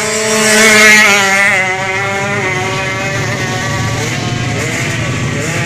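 Drag-race motorcycle accelerating hard down the strip and passing close by, loudest about a second in, its engine note then carrying on further away. From about four seconds in, another motorcycle engine is revved in short blips.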